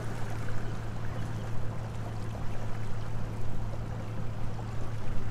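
Boat motor giving a steady low hum, with water sloshing against the hull.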